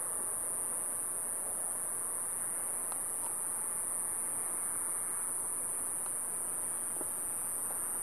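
Steady, high-pitched insect chorus, with a soft hiss beneath and a few faint ticks.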